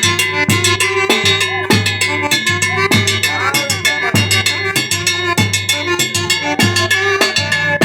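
Band-orchestra music with a drum kit keeping a steady, fast beat over bass and melody lines.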